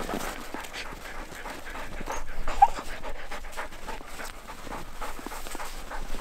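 Harnessed huskies panting hard, excited before a run, with one brief high whine about two and a half seconds in.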